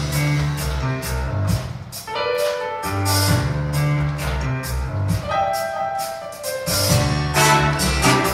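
Upbeat pop accompaniment with a drum beat, bass line and keyboard melody, without clear singing in it.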